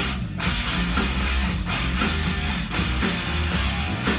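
Rock music with electric guitar, bass and a steady drum beat, played back from a vinyl record.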